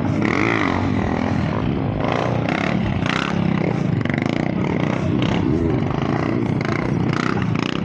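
Motorcycle engines revving, rising and falling in pitch as riders hold wheelies.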